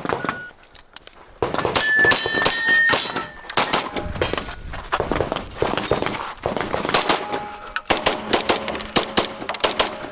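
A shot timer beeps to start the string, then a compensated 9mm Major Open pistol fires rapid strings of shots in quick clusters.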